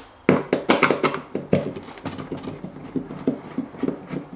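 A screwdriver turning a screw out of the plastic light cover inside a Samsung RS21 fridge, heard as a run of short, uneven clicks and creaks.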